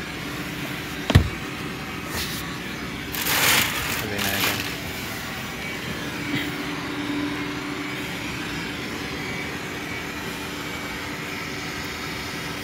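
Handling noise inside a car's cabin: one sharp thump about a second in as the rear seat's fold-down armrest is moved, then a couple of seconds of rustling, over a steady low hum.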